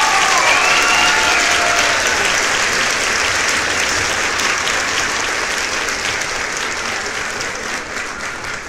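Crowd applauding with a dense patter of clapping and a few cheers in the first couple of seconds. The applause slowly dies down.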